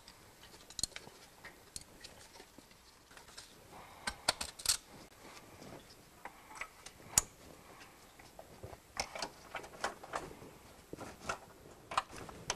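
Scattered light clicks and clinks of hands handling a fuel filter and its mounting bracket, in small clusters with one sharper click partway through.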